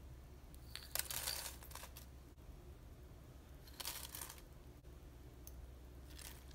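Almonds, then raisins, then green chilies tipped from a small glass bowl onto dry corn flakes: three short crinkly rustles, about a second in, about four seconds in and near the end.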